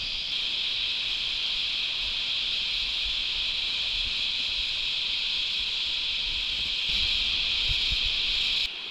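Cicada chorus: a steady high-pitched drone that swells a little near the end, then stops abruptly.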